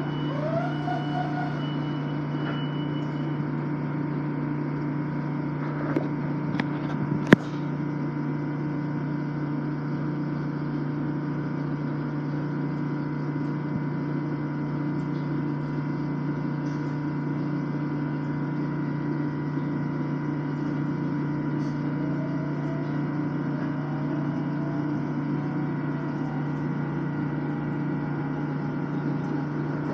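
Interior of an LIRR M7 electric multiple-unit car running between stations: a steady low hum and rumble with constant whining tones. A single sharp click comes about seven seconds in, and a faint whine rises in pitch about two-thirds of the way through.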